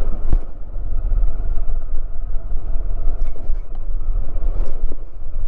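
Motorcycle engine running at low speed over a rough dirt track, with a steady low rumble and a few brief knocks from the bumps.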